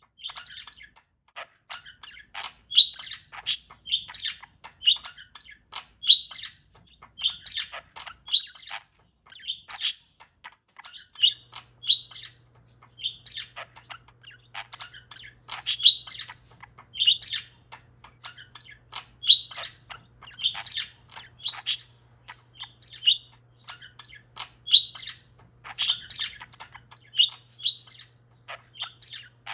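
Pet parakeet chirping over and over in short, sharp chirps, one or two a second, mixed with brief clicky notes.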